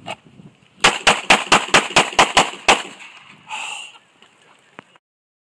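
Handgun fired in a rapid string of nine shots, about four a second, each one a sharp crack.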